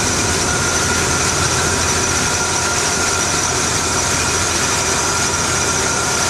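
1987 GMC pickup's engine idling steadily, with a steady high-pitched whine over the running noise.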